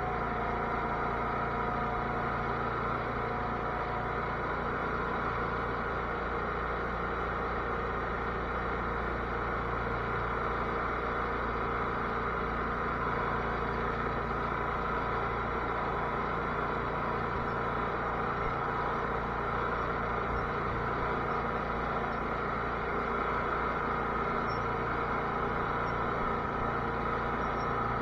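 Cub Cadet garden tractor's engine running at a steady speed.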